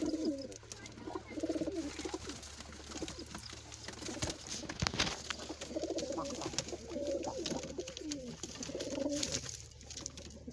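Domestic pigeons cooing, one rolling coo after another, often overlapping. Two sharp knocks come about halfway through, over a steady low hum.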